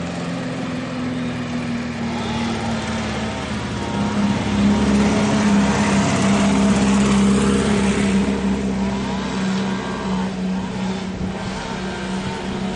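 Chainsaw running at high revs in a steady drone, louder for a few seconds in the middle, as trees are being cut down.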